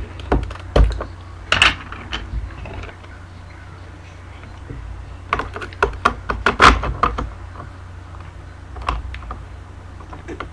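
Plastic Lego bricks and baseplates clicking and clattering against each other and the wooden tabletop as a homemade Lego candy machine is handled and its roof plate lifted. The clicks and knocks come in scattered groups, densest about halfway through, over a steady low hum.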